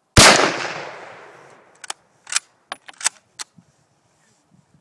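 A single shot from a 1937 Mosin-Nagant bolt-action rifle in 7.62×54R, loud and sudden, its echo dying away over about a second and a half. About two seconds in comes a quick run of sharp metallic clicks as the bolt is worked.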